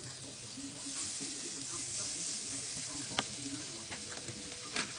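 Butter sizzling steadily as it melts and foams in a hot frying pan, with two sharp taps of a spatula against the pan about three seconds in and near the end.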